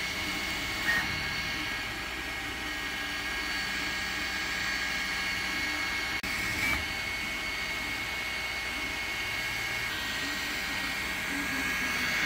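Artillery Sidewinder X4 Pro FDM 3D printer running a print: a steady mechanical whine from its stepper motors, mixed with cooling-fan noise. A short higher chirp sounds twice, about a second in and again past the middle.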